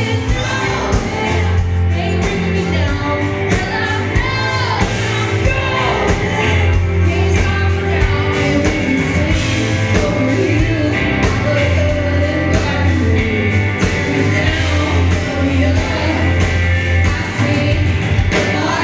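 Live band playing a loud rock-style song with drums and guitars, a woman singing lead into a microphone over it. It is heard through the venue's PA from within the crowd.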